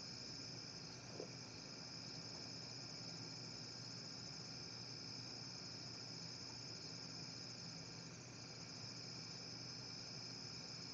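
Steady chorus of crickets on a summer night, one continuous high trill, with a faint low hum underneath.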